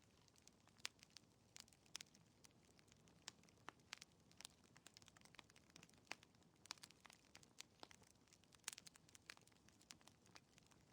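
Faint crackling of a wood fire in a fireplace: irregular sharp pops and snaps, several a second, over a soft low hiss.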